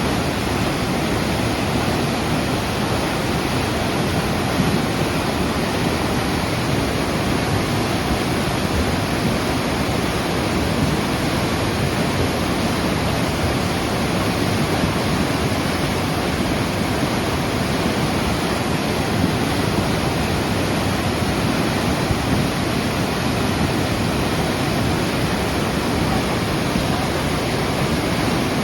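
River in flood after heavy rain, its swollen water rushing with a loud, steady roar that does not let up.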